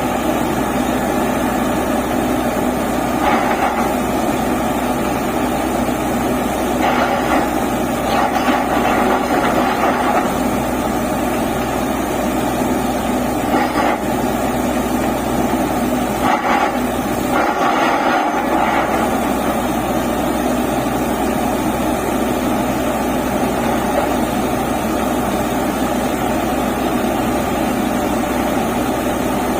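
Borewell drilling rig running steadily under load, its engine and drilling machinery making a loud continuous noise that swells briefly several times.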